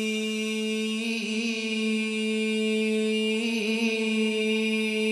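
Voices chanting an Arabic devotional song in unison, holding one long steady note with a brief melodic turn about every two seconds. No drum strokes are heard.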